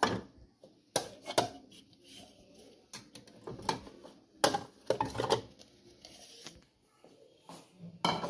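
Stacked bowls clinking and knocking against one another as they are lifted and shifted in a cupboard: a string of separate sharp clinks spread over several seconds. Near the end one bowl is set down on a hard counter with a knock.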